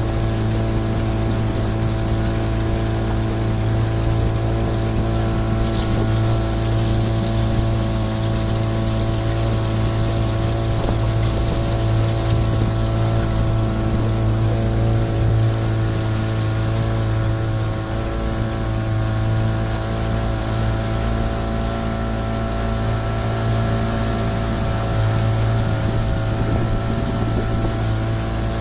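Small motorboat's engine running at a steady speed while under way, with a steady rush of wind over the boat.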